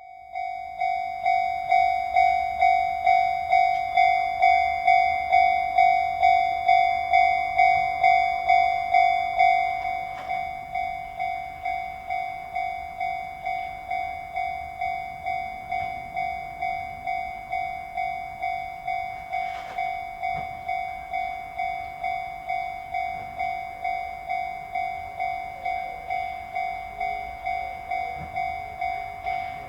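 Japanese level-crossing warning bell ringing "kan-kan", about two rings a second. It turns noticeably quieter about ten seconds in and keeps ringing steadily.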